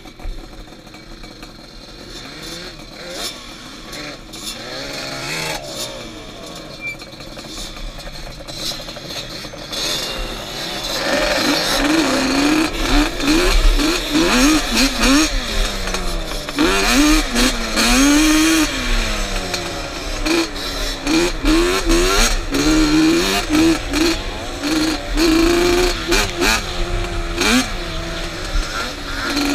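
Yamaha Banshee's two-stroke twin-cylinder quad engine, recorded on the rider's helmet. It runs at low revs for about the first ten seconds, then revs hard, its pitch climbing and dropping again and again as the quad is ridden along a dirt trail.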